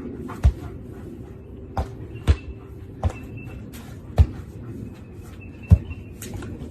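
About six sharp thumps at irregular intervals, the loudest near the end, over a steady background noise.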